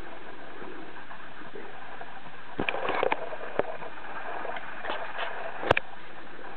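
Kittens playing around a carpeted cat tree: scattered light knocks and clicks over a steady hiss. A cluster comes about two and a half seconds in, and one sharp click comes near the end.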